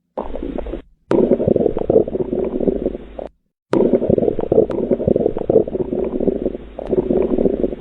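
Abnormal bowel sounds: loud, near-continuous gurgling and rumbling of gas and fluid moving through the intestines, with many small crackles. It breaks off briefly twice, about a second in and again just past three seconds in.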